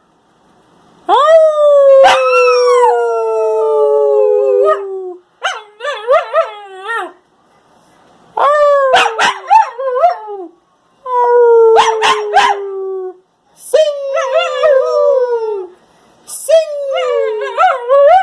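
Husky–German Shepherd mix puppy howling: about six separate howls with short breaks between them, each starting high and sliding down in pitch, some wavering up and down. A few sharp clicks sound over the howls.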